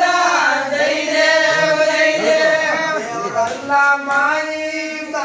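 Group of voices singing a Kannada devotional aarti hymn together in long, held, melismatic lines.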